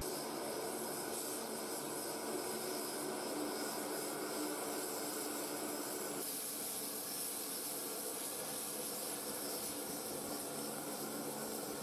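Steady hissing noise with no distinct events, of the kind aircraft engine noise makes; its character shifts slightly about six seconds in.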